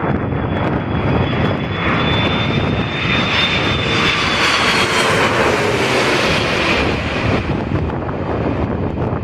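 Airbus A330-200 airliner's twin jet engines passing on landing approach: a high engine whine and a roar that swell to a peak in the middle and then fade, with the pitch sliding down as it goes by. Strong wind buffets the microphone with a low rumble throughout.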